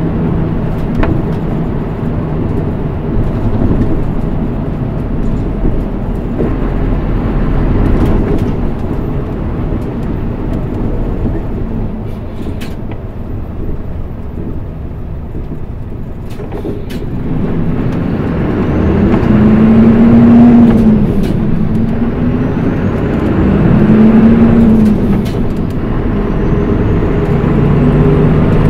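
Mitsubishi Fuso Aerostar PKG-MP35UM city bus with a manual gearbox, heard from inside: the diesel engine runs at low speed with road and body noise. About two-thirds of the way in, the bus pulls away through the gears. The engine note rises, then drops at each gear change, three times, with a faint whine climbing above it.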